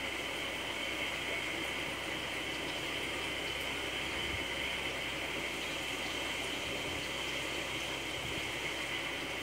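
Aquarium water running steadily, an even hiss of moving water with no breaks.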